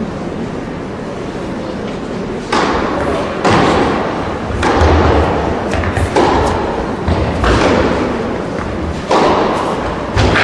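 Tennis balls struck by rackets in a baseline rally: about six sharp hits, roughly one every one to one and a half seconds from about two and a half seconds in, each echoing on in a large indoor hall, with duller low thuds between them.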